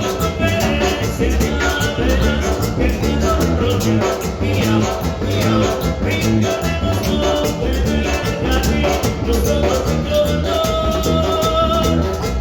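A band playing Latin dance music live, with a steady beat, a strong bass line and percussion. A melody instrument holds longer notes near the end.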